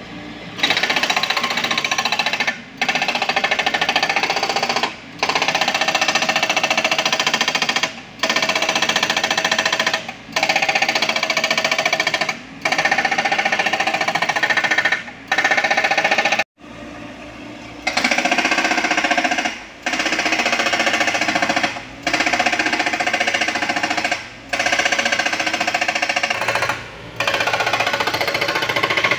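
Hydraulic rock breaker on a Komatsu PC78US mini excavator hammering rock, in about a dozen loud bursts of two to three seconds each, separated by brief pauses.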